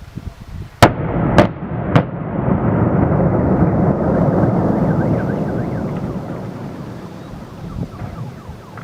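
Three sharp blasts of demolition charges about half a second apart, then a long, loud rumble as the plant's dome comes down, swelling for a couple of seconds and slowly fading.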